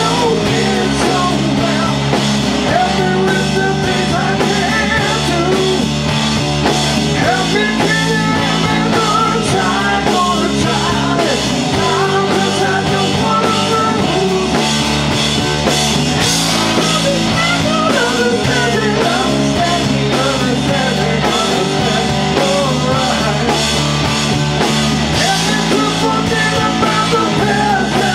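A live rock band plays a song: a Telecaster-style electric guitar over a bass line that shifts note every few seconds, with drums.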